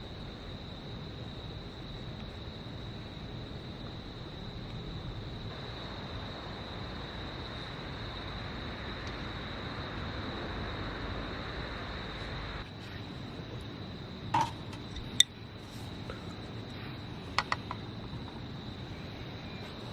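An insect, likely a cricket, gives a steady high trill throughout. A soft hiss runs for several seconds in the middle and cuts off suddenly. Later come a few sharp clinks, like dishes or utensils knocking, the loudest about 15 seconds in.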